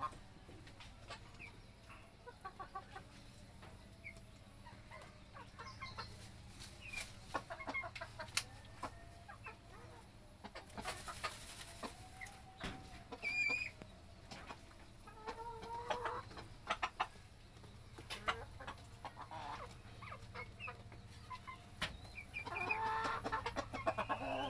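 Bantam chickens clucking and calling off and on, with scattered sharp clicks and a run of louder calls near the end.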